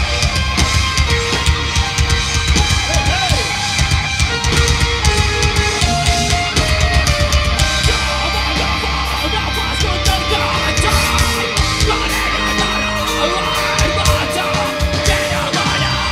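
Live heavy rock band playing loud through a PA: distorted electric guitars, bass and a drum kit, with yelled vocals.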